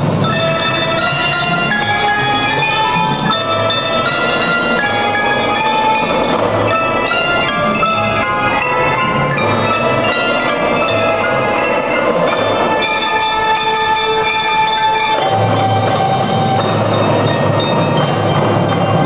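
Marching band front ensemble of marimbas, xylophones and glockenspiels playing a fast melodic passage of ringing mallet notes. A deeper layer underneath drops away for most of the middle and comes back about fifteen seconds in.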